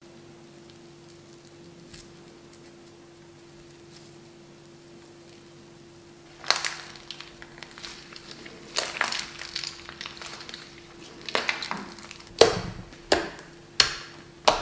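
Slime being squeezed and pressed by hand: wet squishing and crackling, starting after a faint steady hum of several seconds and growing louder, with a few sharp pops near the end as fingers push into it.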